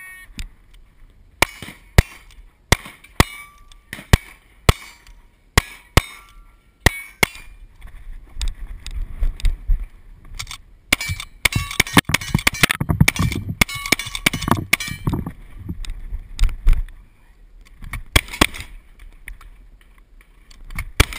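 Cowboy action match shooting: a rapid string of about a dozen gunshots, roughly two a second, at steel silhouette targets, then a dense stretch of clattering gun and gear handling mixed with more shots, and a few more shots near the end as a double-barrel shotgun comes into play.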